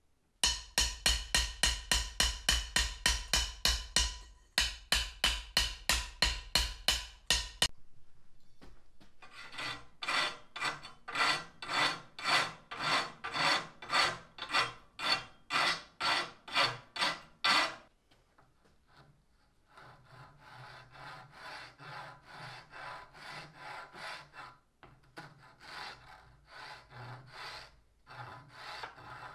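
A hand tool is being stroked back and forth across a wooden hammer handle, making a rhythmic rasping. A fast, loud run of about four strokes a second is followed by a slower run of about two strokes a second, then a fainter stretch of strokes from about two-thirds of the way in.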